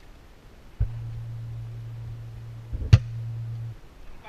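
A single sharp shot about three seconds in, the loudest sound: a KAC PDW spring-powered airsoft rifle firing. Under it runs a steady low hum that starts just before a second in and stops shortly before the end.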